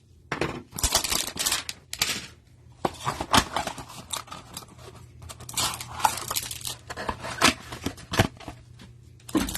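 A trading-card hanger box being torn open by hand: irregular cardboard rips and rustling of the wrapper, in a quick run of short tears with brief pauses.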